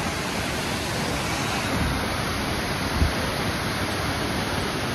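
Waterfall: water pouring down over rocks into a pool, a steady rushing hiss, with one brief low thump about three seconds in.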